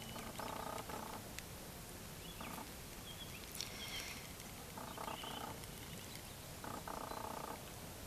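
Frogs calling: about four short croaking calls, each under a second, a second or two apart, over a steady hiss, with a few faint bird chirps about halfway.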